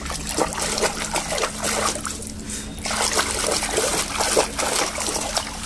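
A hand sloshing and squelching through thick muddy water in a tub, with irregular wet splashes and slops.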